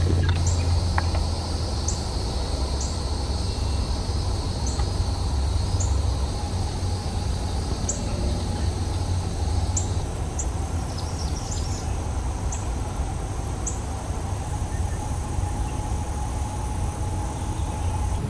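Steady summer insect chorus with a short high chirp repeating about once a second, over a low steady rumble.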